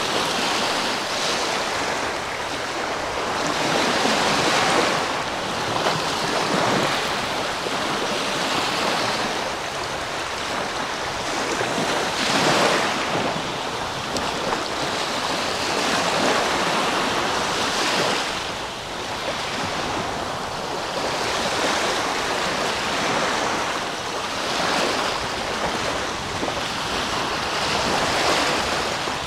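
Small Black Sea waves breaking and washing up over a shell-strewn beach, the surf swelling and easing every few seconds.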